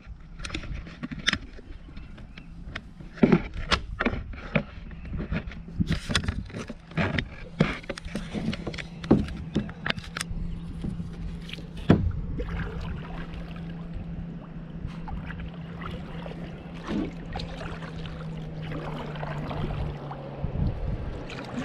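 Kayak under way on a calm river: scattered knocks and splashes against the hull, over a steady low hum that cuts off shortly before the end.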